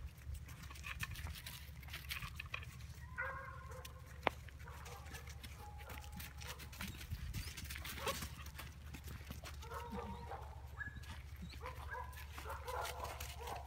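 Puppies vocalising in short, broken calls as they play-fight, with their paws scuffling and crackling through dry fallen leaves; a single sharp click about four seconds in.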